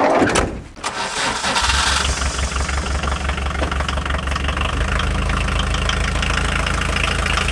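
A Volkswagen T3 camper van's sliding door is shut, then the engine is cranked and catches about a second and a half in, settling into a steady idle.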